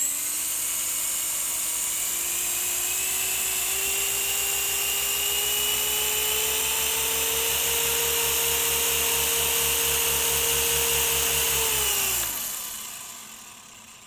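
Syma S107G micro remote-control helicopter's small electric motors whining as its coaxial rotors spin on a counter top without lifting off, the pitch creeping up over the first several seconds, with a fast low flutter from the blades. About twelve seconds in the motors cut off and the whine drops in pitch and fades as the rotors spin down.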